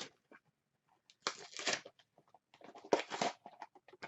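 Blind-box mini figure packaging being torn open, crinkling and tearing in two bursts, about a second in and around three seconds in, with small clicks and rustles between.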